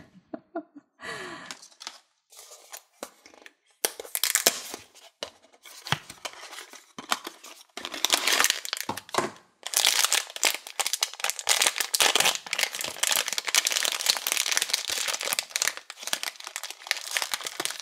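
Small cardboard blind box being opened, then the foil bag inside torn and crinkled open by hand. A few light clicks and rustles first, then crinkling from about four seconds in that turns almost continuous in the second half.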